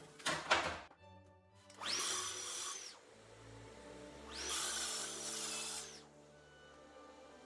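A couple of knocks at the start, then a Festool plunge-cut track saw running twice: a short run about two seconds in, then a longer one from about four and a half to six seconds. Each time the motor spins up to a high whine as it cuts along the guide rail through a laminated chipboard panel.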